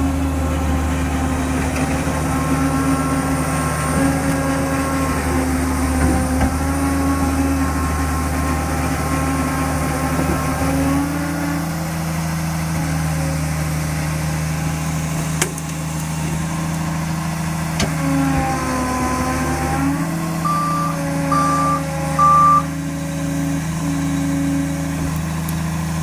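Liebherr 734 crawler bulldozer's diesel engine running steadily, its note changing pitch a couple of times, while the machine is bogged down in mud. About 21 seconds in, three short reversing beeps sound as it is put into reverse.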